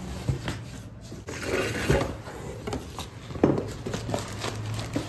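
Cardboard delivery box being handled and unpacked: scattered knocks and scrapes of cardboard, with some rustling of packaging and a sharp knock about three and a half seconds in.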